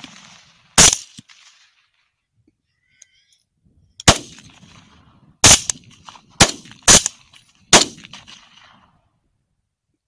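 Rifle shots: one about a second in, then a quick, uneven string of five between about four and eight seconds in, each trailing off in a short echo.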